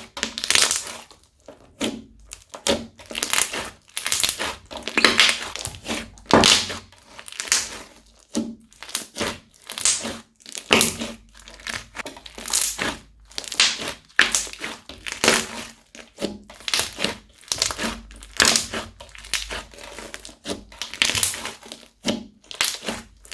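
Crunchy slime being squeezed and pressed by hand, giving bursts of crackling crunches about one or two a second.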